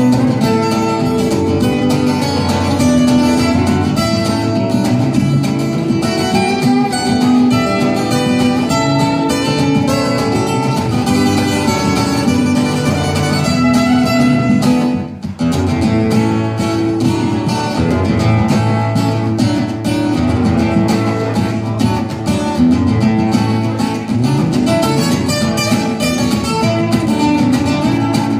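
Solo acoustic guitar playing an instrumental piece with dense, rapid notes. There is a short break in the playing about halfway through.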